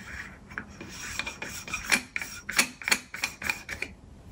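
Metal threads rasping and clicking as a Sony camera adapter is screwed by hand onto a William Optics ZenithStar 61 II telescope, with a run of sharp clicks that are loudest about two to three seconds in.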